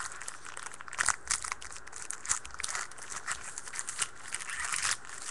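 Foil trading-card pack being torn open and crinkled in the hands: irregular crinkling and tearing of the wrapper, loudest about a second in and again near the end.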